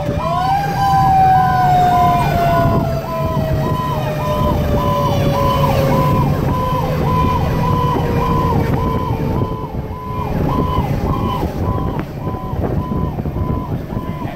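Cab of a 2010 Pierce Arrow XT fire engine under way: the engine runs under a siren whose pitch falls slowly and dies out about ten seconds in. Throughout, an electronic warning tone pulses steadily, about one and a half beeps a second.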